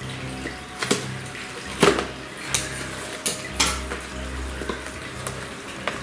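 Toy packaging being pulled and pried at by hand: irregular sharp clicks and snaps, about seven in all, over a steady low hum. A tight-fitting piece is being worked loose.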